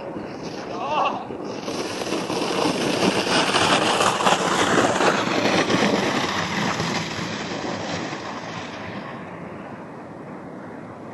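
A sled sliding over snow past the camera: a rushing hiss that swells to a peak about halfway through and fades as the sled runs away down the hill. A brief voice is heard about a second in.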